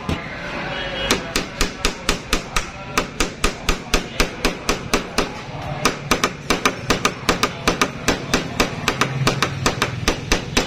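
Hammer driving a nail into wood, struck in quick, even blows several times a second, with a few short pauses between runs of strikes.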